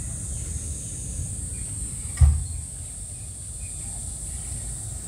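Steady high-pitched buzz over a low rumble, broken by a single thump about two seconds in.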